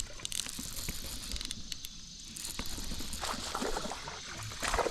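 A hooked bass being reeled in: fishing reel and line rattling, with irregular splashing as the fish thrashes at the water surface, busiest in the second half.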